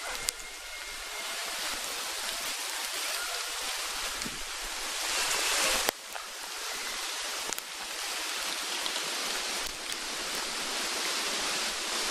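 Steady outdoor hiss with no clear single source, broken by a sudden jump about halfway through where the recording cuts.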